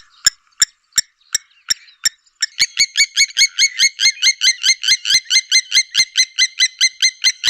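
A bird call: a fast, even series of short repeated notes that starts about two and a half seconds in, over a steady ticking of about three clicks a second.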